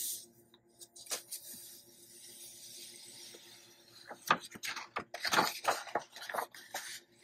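Hands rubbing over a sheet of copy paper on a gel printing plate, a soft steady hiss, then the paper peeled off the plate and handled, with crackling and rustling from about four seconds in.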